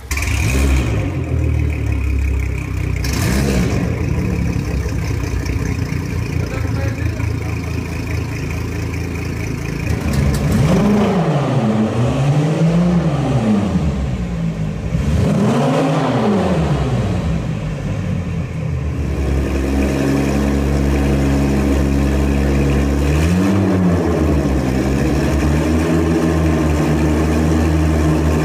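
Twin Mercury Verado 300 HP outboard motors starting up and idling out of the water, then revved up and back down three times in quick succession and once more later before settling back to a steady idle.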